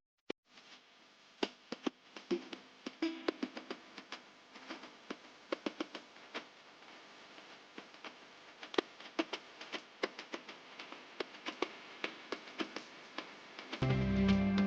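Scattered, irregular clicks and taps over a faint hiss, then guitar music starting suddenly and loudly about a second before the end.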